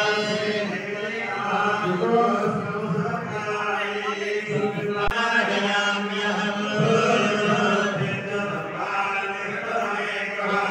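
Male voices chanting Hindu mantras in a steady, continuous recitation, as priests chant during a temple archana offering.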